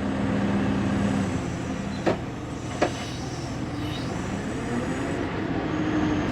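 1999 Fermec TLK760 backhoe's diesel engine running under working load while it swings and dumps a bucket of dirt, with the engine note dropping a little after the first second and climbing again near the end. Two sharp knocks come about two and three seconds in.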